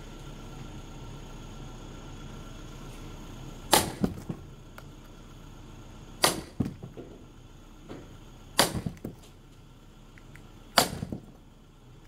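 A sledgehammer strikes the back of a splitting axe wedged in a log: four sharp metal-on-metal blows about two and a half seconds apart, each followed by a few lighter knocks. The wood is rain-soaked and slow to split.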